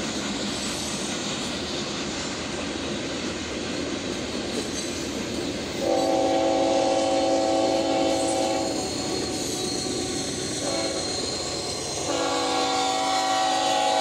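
Approaching freight train running with a steady rail rumble. About six seconds in, its Union Pacific diesel locomotive's air horn sounds a multi-note chord: a long blast of about three seconds, a short toot, then another long blast that carries on, the long-short-long close of a grade-crossing signal.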